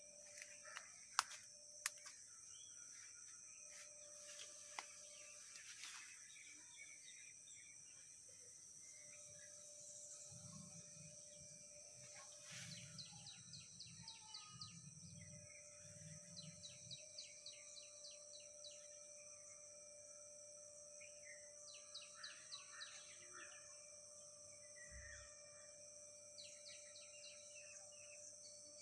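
Faint outdoor ambience: birds chirping in quick runs at intervals over a steady high-pitched hum, with a few sharp clicks about a second in.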